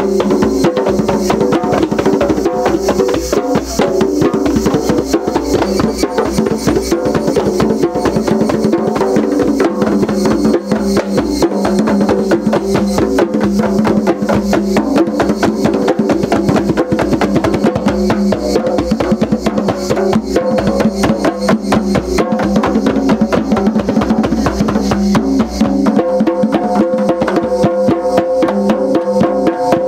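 Djembes played with bare hands in a fast, dense rhythm, together with a small hand-held frame drum.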